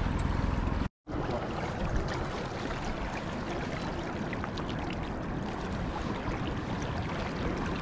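Steady rush of river water flowing past an anchored boat in a strong current, with faint small splashes; the sound cuts out completely for a moment about a second in.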